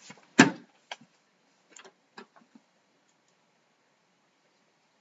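One sharp knock about half a second in, followed by a few lighter clicks and taps over the next two seconds, as a sheet of paper and a pen are handled on a desk.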